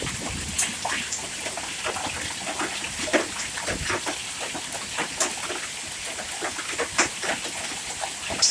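Hailstones about quarter-sized falling in a steady downpour, with a constant hiss and many sharp, irregular knocks as stones strike a truck and the ground nearby.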